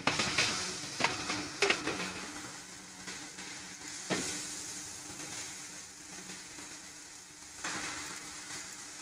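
Hard plastic clicks and knocks as the bowl, lid and food pusher of an electric food processor are handled and fitted: a few sharp clicks in the first two seconds and another about four seconds in, over a steady hiss.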